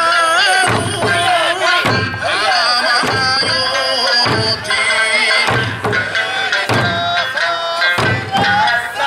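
Okinawan Eisa drum dance music: a singing voice carried over loudspeakers, with the dancers' large barrel drums and hand drums struck about once a second.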